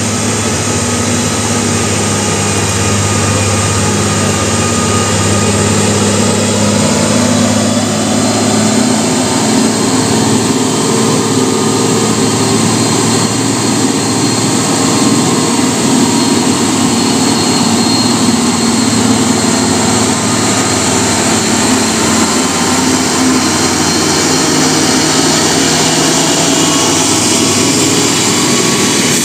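UD Quester heavy truck's diesel engine labouring at low speed up a steep hairpin climb, a steady low drone that grows fuller and louder as the truck comes up the bend and passes close by.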